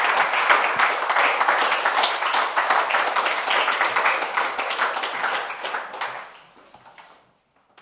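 Audience applauding, a dense patter of many hands clapping that fades out about six to seven seconds in.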